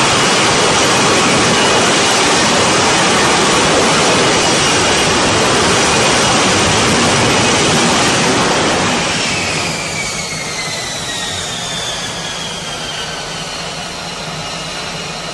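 F-35B's Pratt & Whitney F135 jet engine and lift fan roaring at full hover power during a vertical landing. About nine seconds in, after touchdown, the roar drops and a high whine slowly falls in pitch as the engine throttles back.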